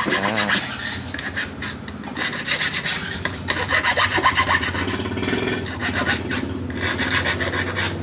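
A steel hand file rasping back and forth over the tops of nails set upright in a plywood board, in quick repeated strokes, as the nail ends are filed down.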